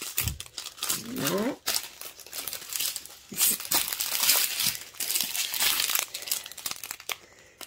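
Small clear plastic bags of diamond painting drills crinkling as they are handled and shuffled, in irregular bursts.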